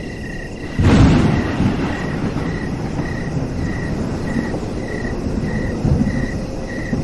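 A loud thunderclap about a second in, with a second rumble near six seconds, over heavy rain falling. Crickets chirp in an even pulse throughout.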